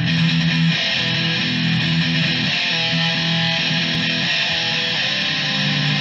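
Instrumental intro music with guitar, playing steadily.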